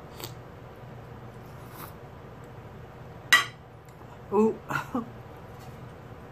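Sounds of a person eating: a single sharp smack or click about three seconds in, then three short vocal sounds close together.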